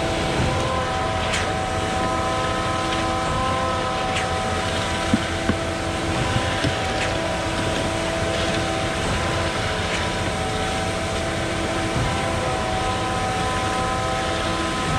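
Diesel engine of a concrete boom pump truck running steadily at an even pitch while pumping concrete, with a few light clicks about five to seven seconds in.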